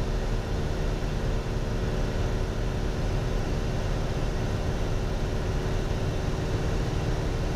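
Piper Warrior light aircraft in flight: its four-cylinder Lycoming piston engine and propeller drone steadily and evenly, over a constant rush of noise.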